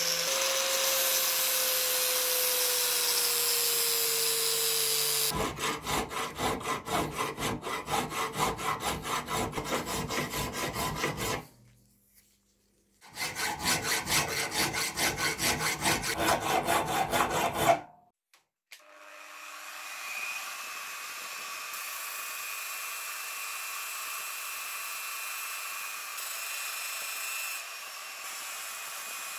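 An angle grinder cuts into the steel wrench jaw for about five seconds. Then a hand file rasps across the steel in quick, even back-and-forth strokes, in two runs with a short break between. After a pause a small electric disc sander starts up and runs steadily.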